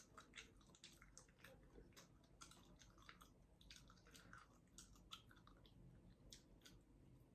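Faint close-miked chewing of a dry baked good: small clicks and mouth smacks, a few a second, at irregular intervals.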